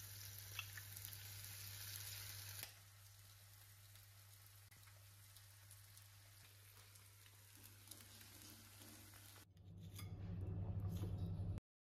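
Food sizzling in oil in a frying pan, mushrooms first, then eggs, sausages and mushrooms. The sizzle is louder at first and drops to a quieter hiss after about three seconds. Near the end a low hum with light scrapes takes over.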